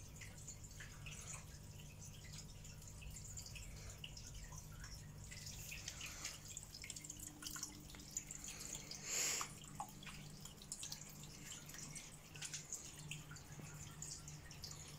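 Water trickling and dripping from an aquarium's decorative waterfall: many small drips and splashes, with one louder splash about nine seconds in, over a faint steady low hum.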